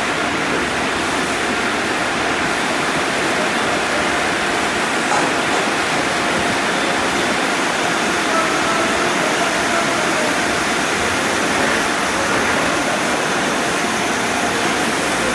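Express car wash tunnel running: water pours in curtains from an overhead waterfall applicator and spray arches onto a passing car while tall side-wash brushes spin against it. The result is a steady, even rushing hiss.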